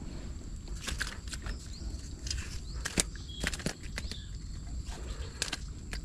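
Scattered light taps and knocks of a fish and fishing tackle being handled in a wooden boat, over a steady low wind rumble on the microphone.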